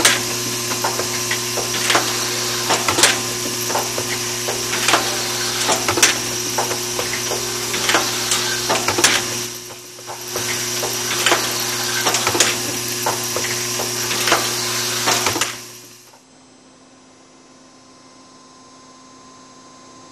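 Automatic needle bearing assembly machine running: a steady mechanical hum with irregular clicks and clacks as its parts cycle. It dips briefly about halfway through, then drops to a faint steady hum after about 15 seconds.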